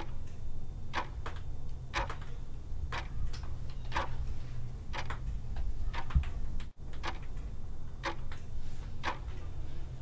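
Clock ticking, a steady tick-tock about once a second over a low hum, with a brief cut-out about two-thirds of the way through.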